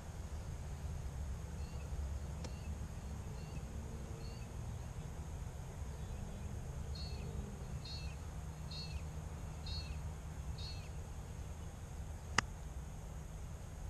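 A bird calling over and over, short chirps about once a second. Near the end, a single sharp click of a golf iron striking the ball.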